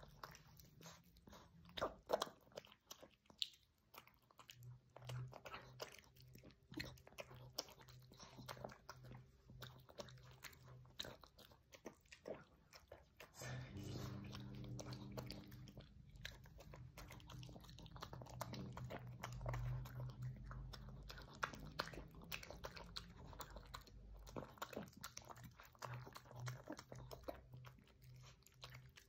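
A small dog eating soft food from a ceramic bowl: quiet, irregular wet chewing, biting and lapping, with quick clicks of teeth and tongue against the bowl. A low steady hum runs underneath and gets stronger about halfway through.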